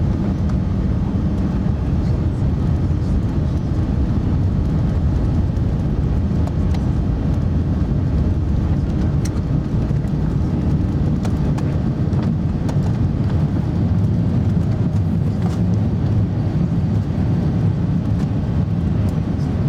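Cabin noise inside an Airbus A380 on its takeoff run and initial climb: a loud, steady low rumble from its four engines at takeoff power and the airframe, with a few light clicks from the cabin.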